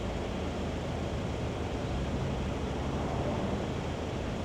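Third-generation Chevrolet Colorado's turbocharged four-cylinder engine idling steadily, a low hum under an even hiss.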